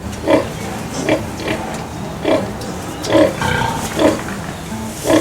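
Pigs grunting in short calls about once a second, over a steady background noise.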